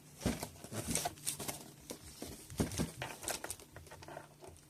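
Doll box packaging being handled, with scattered crinkles, rustles and light taps.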